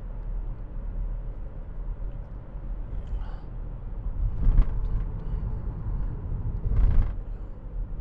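Steady low road noise inside a car driving on a highway, with two louder thuds about halfway through and again near the end.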